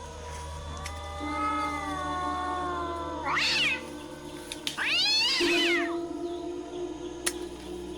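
Two meow-like animal cries, the second longer, each rising and then falling in pitch, over a faint steady background tone.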